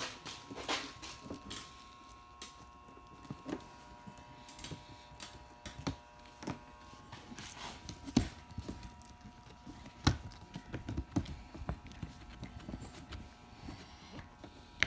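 Irregular knocks, taps and handling noises from working a rubber seal and molding onto a Lexan windshield, with the sharpest knocks about 8 and 10 seconds in.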